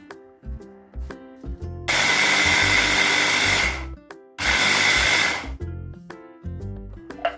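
A small electric kitchen appliance motor runs in two bursts, the first about two seconds long and the second about a second, over background music.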